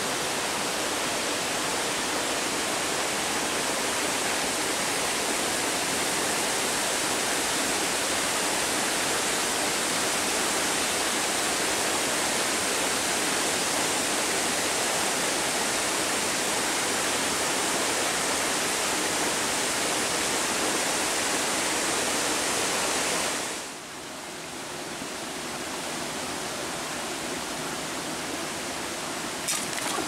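Steady rushing of a waterfall, which drops suddenly to a quieter, softer rush about three-quarters of the way through. A few light clicks near the very end.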